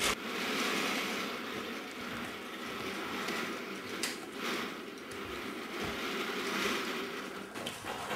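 Battery-powered Trackmaster toy train running: a steady whirring rattle from its small motor and plastic wheels on the track, with a couple of sharp clicks as toy engines are handled.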